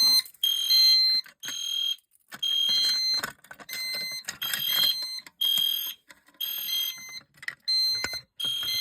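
A fire alarm horn sounds in short, steady-pitched blasts, roughly one a second. A fire alarm panel in walk test is signalling that a device has been tripped.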